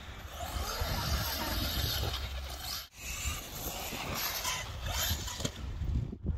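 Wind buffeting the microphone: an uneven low rumble with a light hiss above it, broken by two brief drop-outs.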